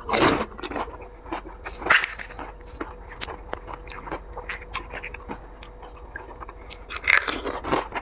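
Crisp fuchka (panipuri) shells being bitten and chewed in quick succession: a steady run of crunches and chewing sounds, the loudest crunches at the very start, about two seconds in, and around seven seconds.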